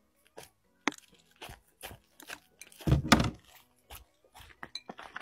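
Dog biting and chewing a fried chicken burger held in a person's hands: scattered crisp crunches and wet mouth clicks, with the loudest burst of crunching about three seconds in as it takes a big bite.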